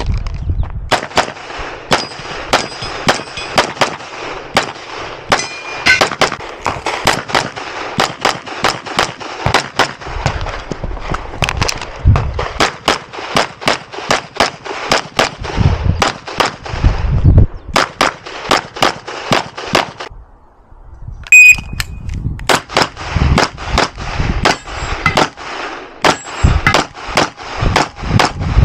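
Grand Power XCalibur 9mm pistol firing rapid strings of shots a fraction of a second apart, with a pause of about a second and a half two-thirds of the way through. A short metallic ring comes just after the pause.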